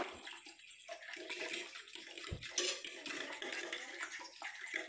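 Water running, as from a kitchen tap, with small clinks and a low bump about two seconds in.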